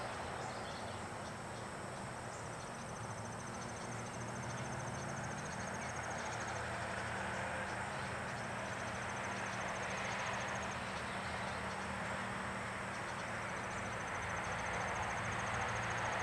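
Outdoor background of steady hiss and low hum, with a high, dry trill that repeats several times, each stretch lasting a few seconds.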